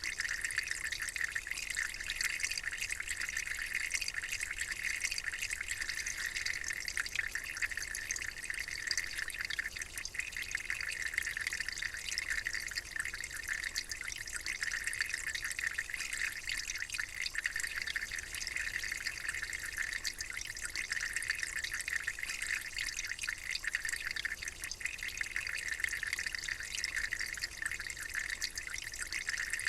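Running water, flowing and trickling steadily with a dense fine splashing and no pauses.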